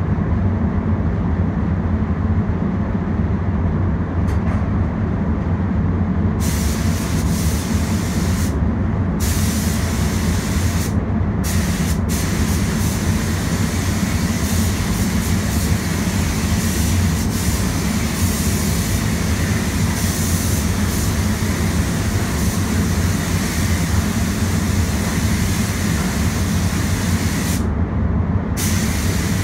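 Spray gun hissing as clearcoat is sprayed, starting about six seconds in and stopping briefly a few times, over the steady low rumble of the paint booth's air fans.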